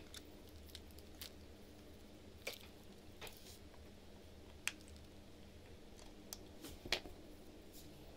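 Faint, irregular small clicks and taps as a wristwatch movement is handled and turned in the fingers, over a low steady hum.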